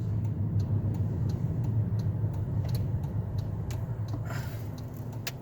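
Car interior: low steady engine and road rumble with a turn signal ticking about three times a second, and a brief hiss and a click near the end.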